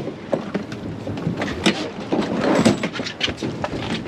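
Irregular knocks and clatter on a fishing boat's deck, over a steady wash of wind and water noise.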